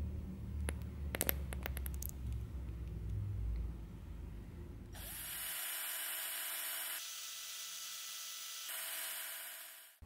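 Electric drill spinning a rod to stir liquid in a plastic cup. The motor starts about halfway through, eases off for a moment, then speeds up again before stopping. Before it there is a low rumble with a few clicks.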